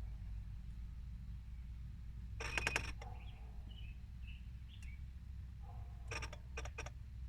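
Clicking from a switched-off 2015.5 Volvo S60 T6: a quick run of clicks about two and a half seconds in, then a group of about five clicks near the end. Birds chirp faintly in the background.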